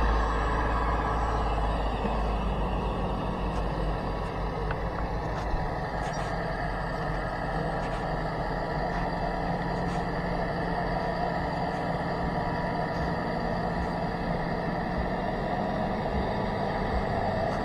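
Small electric motors whirring steadily, with a heavy low rumble in the first second.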